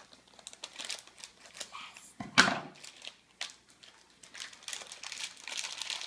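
A plastic blind bag crinkling and rustling as it is cut with scissors and pulled open, with one loud sharp clack about two and a half seconds in.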